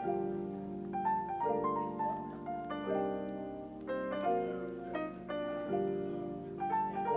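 Background music of gentle piano notes, each held for a short while before the next one comes in.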